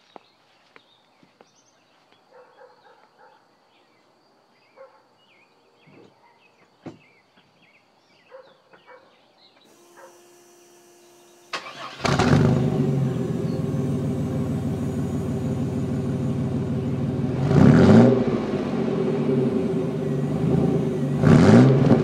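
Faint scattered clicks, then a steady whine from the fuel pump, which is a little whiny. Then the Chevrolet S-10 Blazer's 4.3 L V6 cranks and starts, running through a glass-pack muffler and tailpipe. It is revved briefly twice, the second time near the end.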